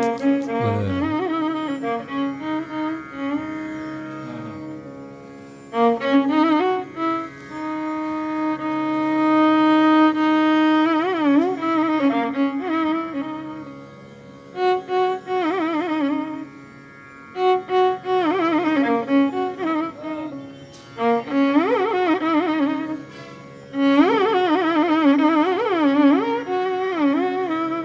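Background instrumental music: a Carnatic-style melody on a bowed string instrument, with long held notes and wavering slides between them.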